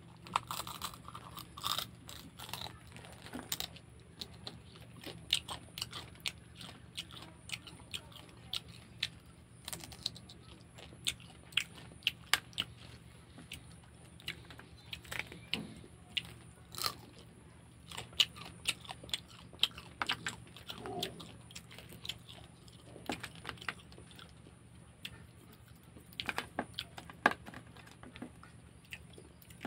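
Cooked crab shell cracking and crunching as a whole crab is bitten and broken apart by hand, with chewing: many sharp, irregular cracks and clicks.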